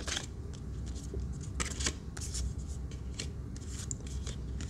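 Paper and cardstock album inserts and a photocard being slid out and handled by hand: a series of short rustles and scrapes.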